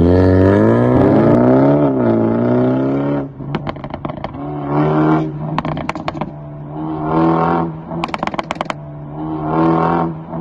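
BMW B48 2.0-litre turbo four-cylinder through a catless downpipe and valved aftermarket exhaust, revving up and falling back. It then gives short throttle blips, each followed by a burst of crackling pops on the overrun, three bursts in all.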